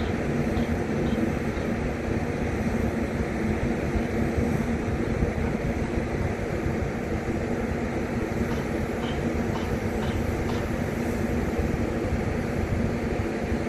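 Steady low rumble with a constant droning hum from industrial plant and port machinery, with a few faint high ticks between about eight and ten seconds in.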